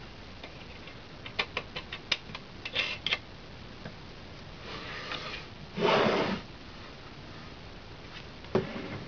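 Handling noise from reconnecting cables at the back of an SG-200 CB power amplifier: a quick run of small clicks and ticks from the connectors and leads, then a louder half-second scraping rush about six seconds in, and a single knock near the end.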